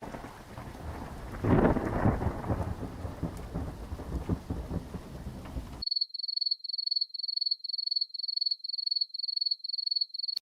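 Thunderstorm sound effect: steady rain with a thunder rumble swelling about a second and a half in, cut off abruptly. It is followed by a run of short, high-pitched pulsed beeps or chirps, about two and a half a second.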